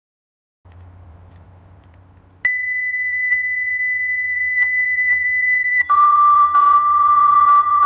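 Television end-of-broadcast test tone: a faint low hum comes in under a second in, then a loud, steady high beep starts about two and a half seconds in and changes to a lower, buzzier tone a few seconds later.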